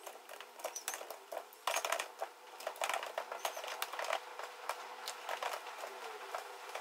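Typing on a computer keyboard: a run of quick, irregular key clicks over a faint steady hum.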